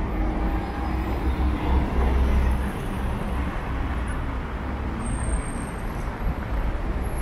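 Steady traffic noise of a busy city street, cars going by with a low rumble.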